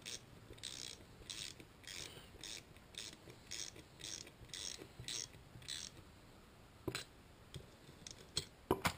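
Ratcheting wrench clicking in short, quiet strokes, about two a second, as it tightens the nut that pulls a tapered rocker locker into a Harley rocker arm support plate. The strokes stop about six seconds in, followed by a few sharper metal clicks near the end.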